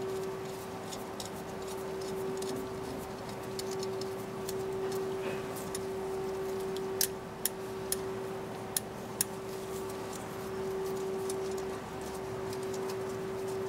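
Small metallic clicks and ticks from a chrome-plated dental lab articulator being handled and adjusted, with a few sharp clicks in quick succession around the middle, over a steady background hum.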